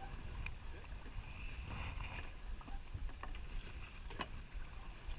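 Steady low rumble of wind and water around a boat at sea, with a few scattered light clicks and knocks.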